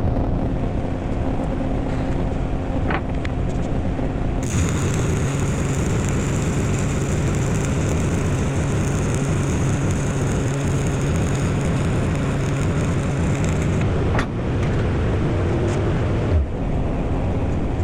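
Stick-welding arc crackling and hissing as the cap pass is run on a D-ring weld, starting about four seconds in and lasting about ten seconds, with a shorter stretch of arc shortly after. Under it a steady engine drone runs throughout.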